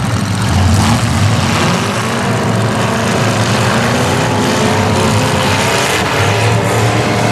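Demolition derby cars' V8 engines running loud through open exhaust, revving up and down as the cars maneuver.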